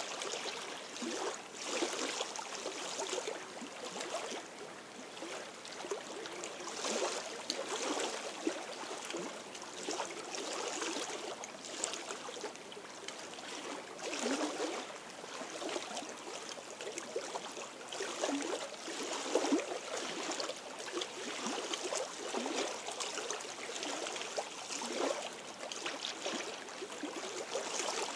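Small lake waves lapping and splashing against shore stones, an irregular wash of water that swells every second or two.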